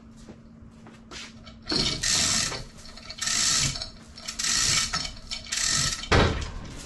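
Manual chain hoist ratcheting through four strokes as it lifts a sailboat of about 1,600 pounds on one corner of a four-point lift, ending in a sharp clunk.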